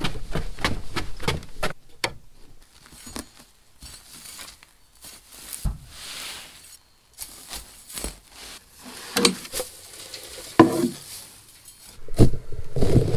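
Quick footfalls on wooden stairs, then dry hay rustling and crackling as a pitchfork is driven into and shifts hay bales, with a few dull thumps.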